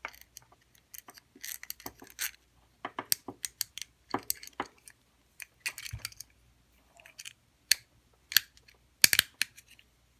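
A homemade metal pick working inside a lever lock: irregular metallic clicks and short scrapes as it is worked against the lever and bolt.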